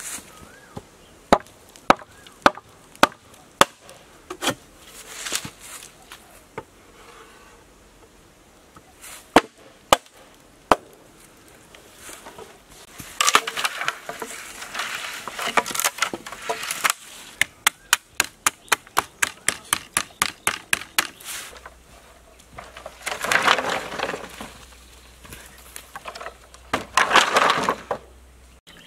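Machete chopping into green bamboo culms: separate sharp knocks at first, then cracking and splintering as a culm is split lengthwise, with a quick run of light taps at about four a second.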